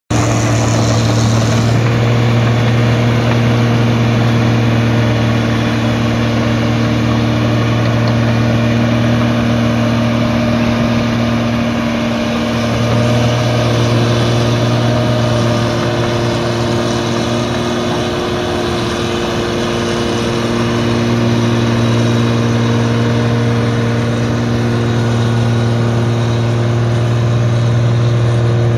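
The Mercedes 352 six-cylinder diesel engine of a New Holland 1545 crawler combine harvester running steadily as the machine crawls through mud, with a slight dip in level a little past the middle.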